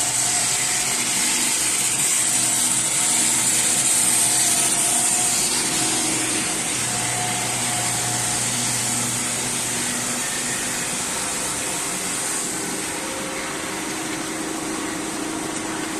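Tire retread grinding: a power grinder buffing a rubber tire casing, a steady grinding hiss over a motor hum. It eases slightly after about six seconds.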